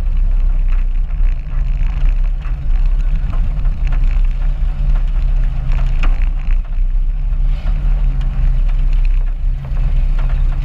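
Demolition derby car's engine running with a steady low drone, heard from inside the gutted cab as the car is driven slowly, with occasional short knocks and rattles from the bare body.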